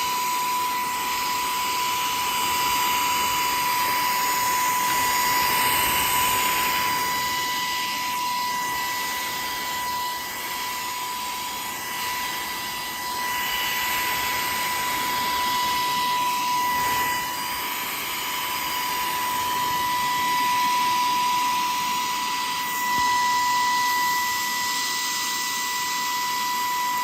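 Saker mini handheld cordless vacuum cleaner running with its brush nozzle on: a steady high-pitched motor whine over rushing air, getting a little louder and softer as it is moved over a dusty surface.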